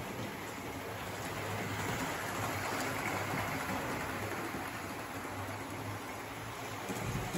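OO-gauge model train running on the track: a steady whirring hiss of the locomotive's motor and wheels on the rails, with a low hum underneath.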